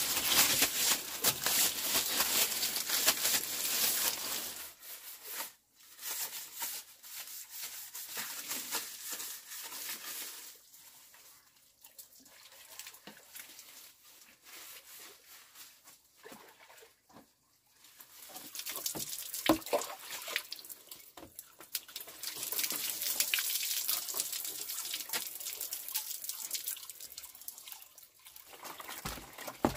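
Water running and splashing in spells, with scattered small knocks and clicks, loudest near the start and again in the second half.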